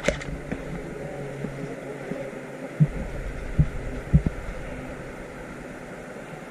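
A sharp click right at the start, then three dull, low thumps close to the camera about three to four seconds in, over a steady low hum.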